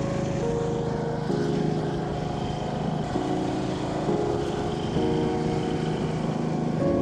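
MTD lawn tractor's engine running steadily, under background music with a slow melody.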